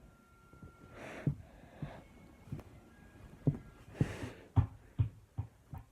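A person breathing close to the microphone, two audible breaths about three seconds apart, with soft thumps and knocks scattered between them.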